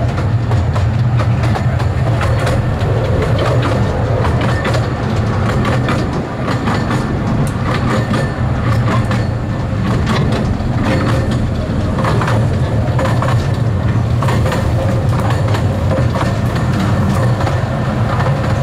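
Miniature railway train running along its track, heard from on board an open carriage: a steady low rumble with irregular clicks and clacks of the wheels over the rails.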